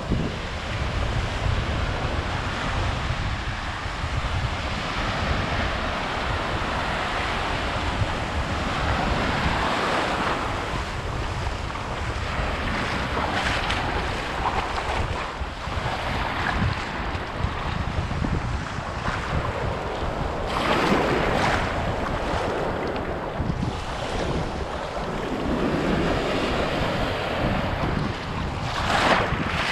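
Small waves washing onto a sandy shore, with wind buffeting the microphone in a steady low rumble. A few louder surges stand out, one about two-thirds of the way through and another near the end.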